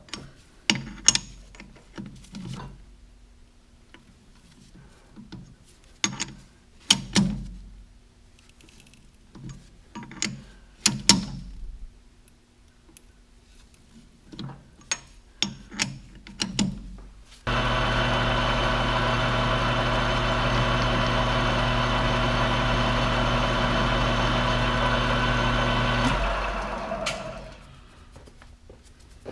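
Metal tools clinking and knocking in a series of separate sharp hits, then an electric machine motor switched on abruptly, running steadily for about eight seconds, then switched off and winding down.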